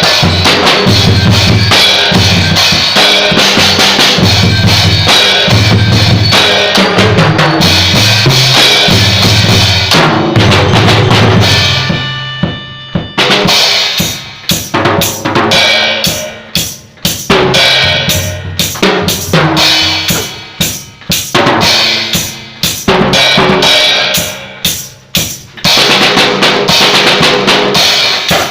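A band playing a song, with drums and a walking bass line prominent. About twelve seconds in the cymbals drop out briefly. After that the playing turns into short accented hits separated by brief gaps.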